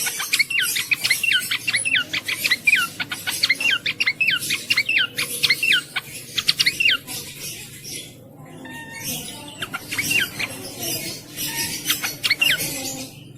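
Cingcoang (jongkangan) singing: a fast chattering run of short, downward-sweeping whistled notes, about five a second. The run breaks off about seven seconds in, and sparser notes follow after a short pause.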